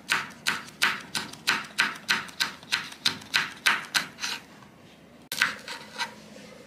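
Kitchen knife slicing a large red chilli into rounds on a bamboo cutting board: even knife strokes knocking on the wood about three times a second, a pause of about a second, then three more strokes.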